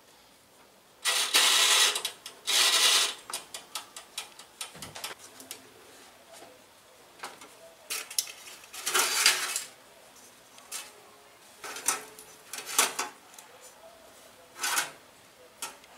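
Handling of a small countertop oven and its pan: scraping, rustling bursts and sharp metal clicks and clinks from the door, rack and foil-covered loaf pan, two longer bursts just after the start and more scattered ones later.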